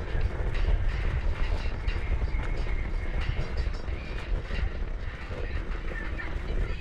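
Electric scooter riding over a gravel forest path: wind rumbling on the microphone, with tyres crunching and irregular small clicks and rattles from the bumps.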